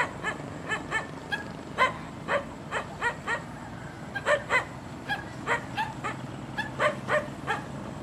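A dog barking over and over in short, quick, irregular barks, about two a second, over the low steady hum of a dump truck's engine.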